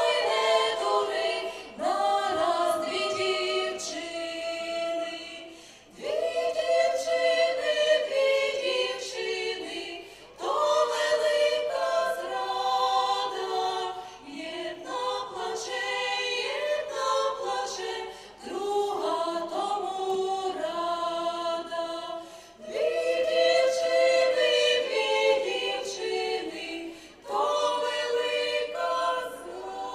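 Women's vocal ensemble singing in several-part harmony, unaccompanied, in phrases of about four seconds with short breaks between them.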